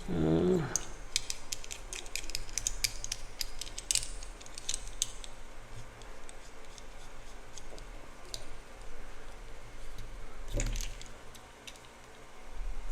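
Series of small metallic clicks and clinks from a stubby ratchet screwdriver and its sockets being worked on a nut or bolt, most frequent in the first few seconds and sparser later.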